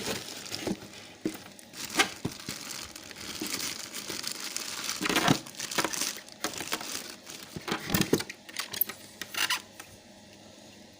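Pressure washer parts and plastic packaging being handled: irregular crinkling rustles with small plastic clicks and knocks, the loudest about 2, 5 and 8 seconds in, settling down near the end.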